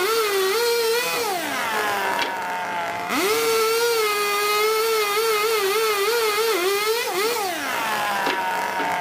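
Chainsaw cutting lengthwise along a wooden slab, its wavering whine dipping under load. It winds down to a stop a little over a second in, spins back up about three seconds in, and winds down again about seven seconds in.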